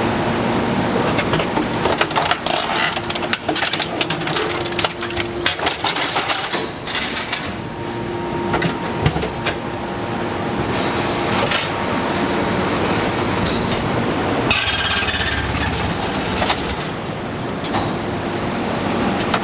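YDJ-6300 hydraulic scrap metal shear baler at work: the hydraulic power unit keeps up a steady hum with a few held tones. Scrap metal clanks and knocks many times in the first half, and a louder harsh rush of noise runs for about two seconds around fifteen seconds in as the metal is pressed or cut.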